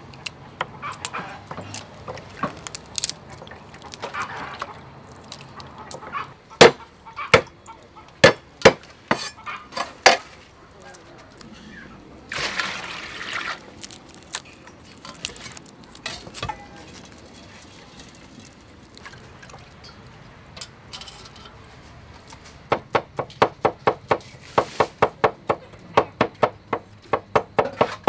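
Garlic being peeled by hand, with faint crackling of the papery skins, broken by a run of several sharp knocks on a wooden chopping board. Over the last few seconds a cleaver chops garlic on the wooden board with rapid, even strikes, about four a second.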